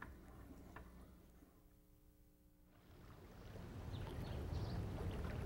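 Near silence for the first half, then outdoor water sounds rising: a person swimming in a backyard pool, with water splashing and lapping over a low steady rumble.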